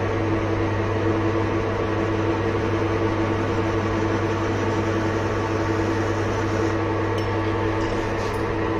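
Manual metal lathe running with a large disc turning in the chuck while the tool takes a cut: a steady machine hum with a constant low tone. A few faint ticks come near the end.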